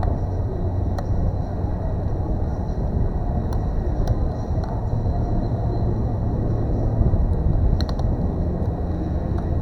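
A steady low rumble with a hum, broken by a few faint clicks.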